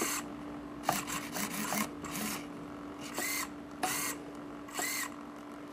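Hobby RC servos driving a cardboard animatronic's eyes and linkages, whirring in a string of short bursts as the transmitter sticks are moved, over a faint steady hum.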